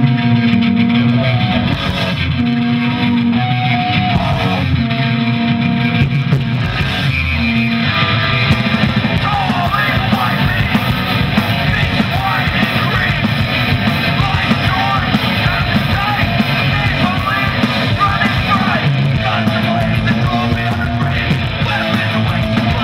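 Punk rock band playing: electric guitars, bass and drums, with vocals coming in about eight seconds in.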